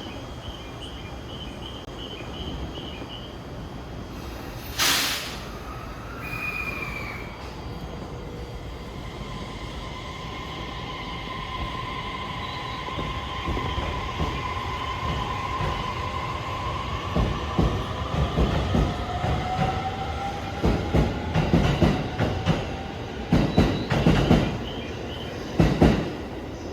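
E257 series 5500 electric train pulling out: a short burst of hiss about five seconds in, then the inverter-driven motors' whine rising in pitch as it gathers speed, with wheels knocking over rail joints and points more and more often in the second half.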